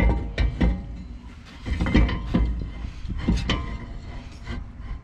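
Steel brake rotor of a BMW E9x's sport brakes being handled and slid back onto the wheel hub: a string of uneven metal clinks and knocks, some ringing briefly.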